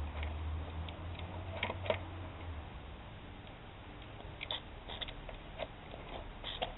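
Scattered light clicks and taps as the propeller of a Saito FA-56 four-stroke model engine is handled and flipped over by hand; the engine does not fire. A low hum stops about two and a half seconds in.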